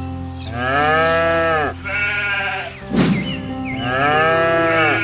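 Farm animal calls, likely sheep: three long drawn-out calls that rise and then fall in pitch, over background music. A sharp click comes about three seconds in.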